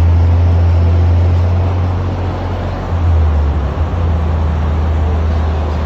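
Steady low rumble of a farm vehicle driving slowly, with a brief dip and surge about two to three seconds in.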